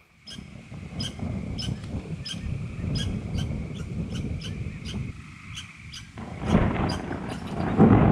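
Woodland ambience: an animal calling in a steady series of short sharp ticks, about three a second, over a low rumble of wind on the microphone. The wind swells louder about six seconds in.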